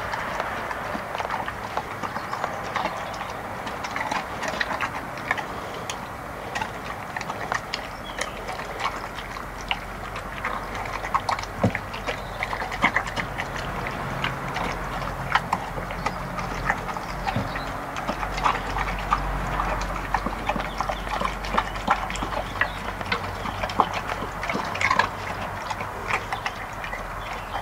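Border collie–rottweiler cross eating from a stainless steel bowl: wet chewing and gulping with irregular clicks and knocks of its mouth against the metal bowl.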